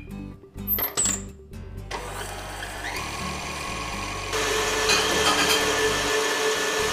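Electric stand mixer running, its flat beater creaming butter and brown sugar in a steel bowl. It starts about two seconds in and grows louder about four seconds in.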